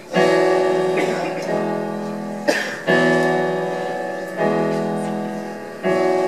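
Piano playing the opening chords of a song: a held chord struck about every second and a half, each one fading away before the next.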